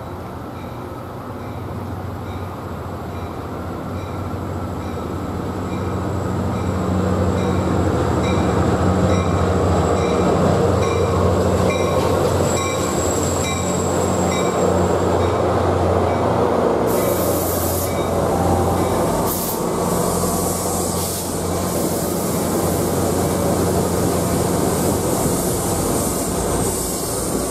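NJ Transit F40PH-2CAT diesel locomotive running as it approaches and passes, its engine growing louder to a peak near the middle. Its coaches then roll by with wheel and rail noise. An evenly repeating high ding sounds until a little past halfway.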